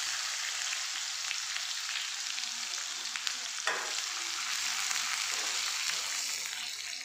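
Chopped onions sizzling in hot oil with cumin in an aluminium kadhai, a steady hiss, while a metal ladle stirs them, with faint scraping ticks and one sharper knock of the ladle on the pan about halfway through.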